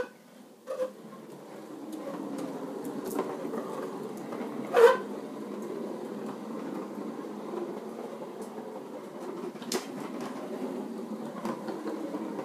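Hard plastic wheels of a child's ride-on swivel car rolling across a concrete floor, a steady rumble, with one short loud sound about five seconds in.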